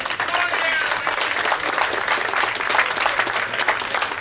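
Audience applauding: many hands clapping at once, with a few voices calling out near the start.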